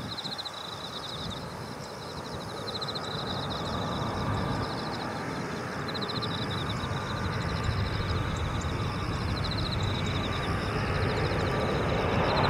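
Airbus A321-200 airliner on final approach, its jet engine noise a low rumble growing steadily louder as it comes nearer. A high, rapid chirping trill repeats in short bursts throughout.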